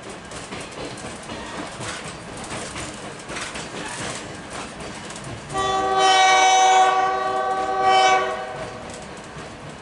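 Train rolling along the track with wheel noise. About five and a half seconds in, the locomotive sounds its air horn in one long blast of about three seconds, swelling once more just before it stops.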